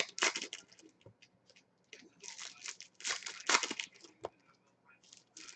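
Baseball trading cards and rigid plastic card holders being handled and sorted: dry rustling and sliding in uneven bursts, with short pauses between them.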